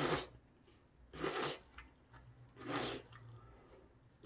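A person slurping thick, hot udon noodles, three loud slurps about a second and a half apart.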